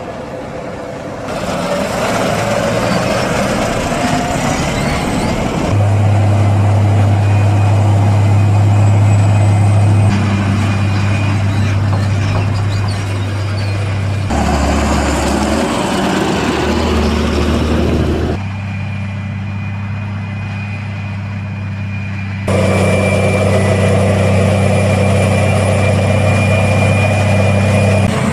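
Heavy diesel engines of John Deere tractors pulling forage wagons and of a John Deere 8800i forage harvester chopping maize, as a run of short clips: a steady low engine drone that shifts abruptly every few seconds, with a thin high whine in some clips.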